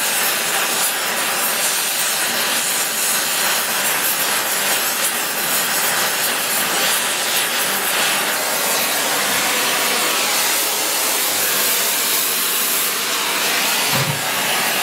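Oxy-fuel torch flame hissing steadily during bronze brazing, a brazing rod being fed into the flame to build up bronze.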